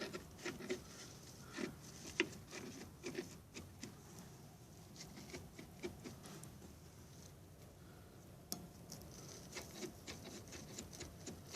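Faint, irregular light clicks and taps from the rear shock absorber's lower mount on a Mercedes W210 being worked by hand. Its rubber bushing is broken and has play.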